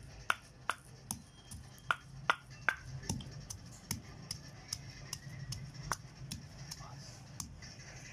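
A spoon clicking against the side of the cooking vessel as onions are stirred into the mix: sharp, irregular clicks two or three a second, thinning out after about four seconds.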